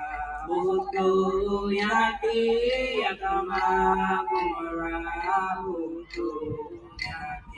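Voices singing a chant in long held notes, the pitch changing about once a second, with a slight dip in the singing near the end.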